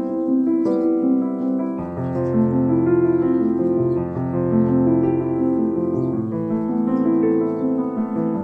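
Background instrumental music carried by a piano-like melody of held notes, with a lower bass part that comes in about two seconds in.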